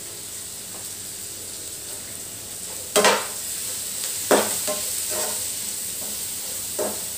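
Sliced vegetables and ground spices sizzling in hot oil in a nonstick frying pan. About three seconds in, a spatula starts stirring them, knocking sharply against the pan twice and then scraping and clicking.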